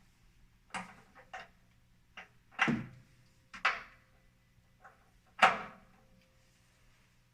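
Half a dozen short, sharp knocks and clanks of a socket and breaker bar being fitted onto the water heater anode rod's hex head and worked against it to break the rod loose; the loudest is about five and a half seconds in. A faint steady low hum runs underneath.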